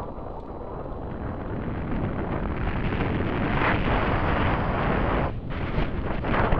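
Wind buffeting the microphone of a camera on a mountain bike rolling down a paved path at speed. The rush builds over the first few seconds and dips briefly near the end.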